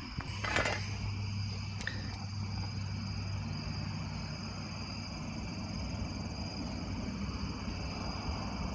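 A steady chorus of night insects, likely crickets or katydids, holding even high tones, over a steady low hum. A couple of faint clicks come in the first two seconds.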